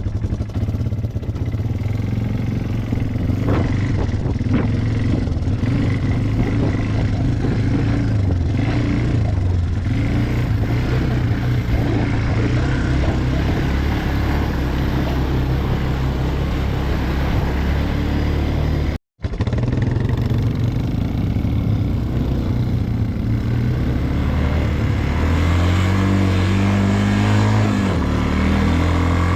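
ATV engine running under way, heard from the rider's seat, its pitch rising and falling with the throttle, most clearly near the end. The sound cuts out for an instant about 19 seconds in.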